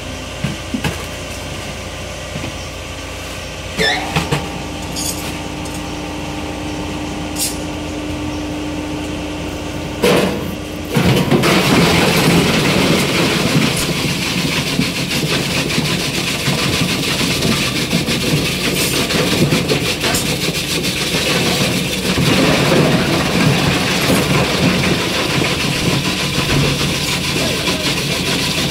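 Electric ice crusher running with a steady hum, with a few sharp knocks against the ice. About eleven seconds in, a block of ice goes into the crusher and it grinds it up with a loud, continuous crunching noise.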